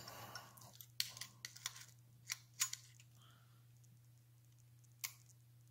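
Caliper jaws and hands clicking and tapping against the steel shaft of a motorized-bicycle engine crankshaft while it is measured: a quick cluster of sharp clicks about a second in, two more shortly after, and a single click near the end.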